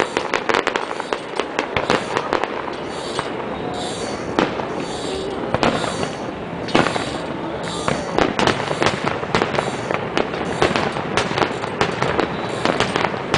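Fireworks display: a dense, unbroken barrage of crackling reports and sharp bangs, several a second, over a continuous crackle.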